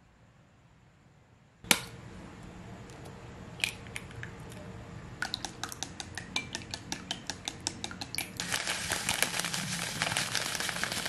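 A sharp knock about two seconds in, then chopsticks beating egg in a glass bowl, clicking against the glass several times a second. Near the end, bread crumbs are poured from a plastic bag into a glass bowl with a dense rustling.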